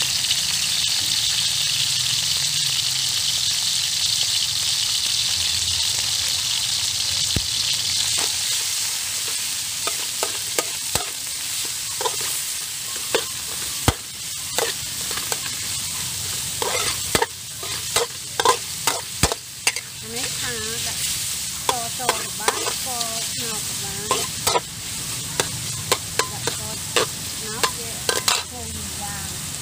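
Pork belly and garlic sizzling in a large metal wok, the hiss strongest in the first half and easing off. From about a third of the way in, a metal spatula scrapes and clinks against the wok again and again as the meat is stir-fried.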